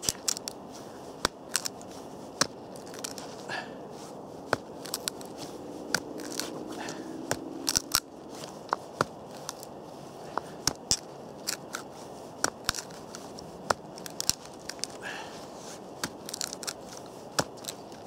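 Point of a D2-steel knife being jabbed and twisted into a frozen, hard wooden board. Irregular sharp cracks and crunches come as the wood fibres split and chips break away, sometimes several in quick succession.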